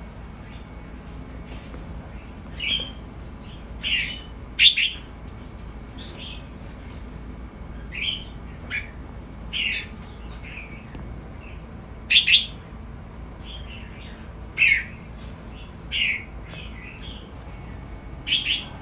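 Red-whiskered bulbuls giving short, bright chirping calls, about a dozen spaced irregularly, with the loudest a few seconds in and again near the middle.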